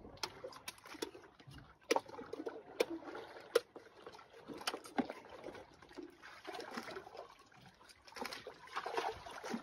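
Quiet eating sounds over a meal of raw sea urchin: scattered light clicks and scrapes of a spoon against urchin shells and a bowl, and fingers working rice on a plate, over a faint watery background.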